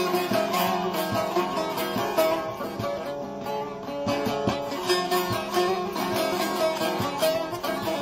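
Bağlama (Turkish long-necked saz) played with a plectrum: a quick run of plucked melody notes over a steady drone.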